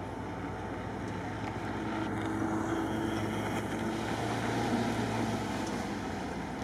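Engine of an off-road 4x4 being driven hard around the course, with a steady engine note that swells for a few seconds in the middle.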